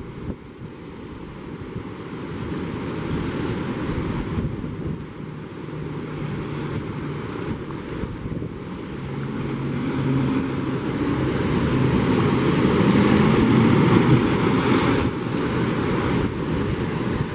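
Gulf of Mexico surf washing in over a rock jetty, with wind buffeting the microphone. The surf swells louder through the middle, peaking about three-quarters of the way through, then eases a little.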